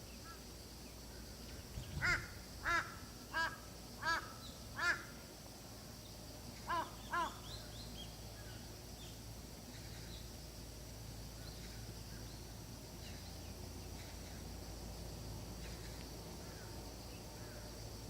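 A crow cawing: a run of five caws about two-thirds of a second apart, then a pair of caws a couple of seconds later, over a faint steady high-pitched background hiss.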